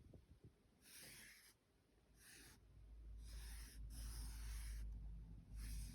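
Letters being drawn in flour on a baking tray: faint, soft scratching strokes, several in a row with short gaps, starting about a second in.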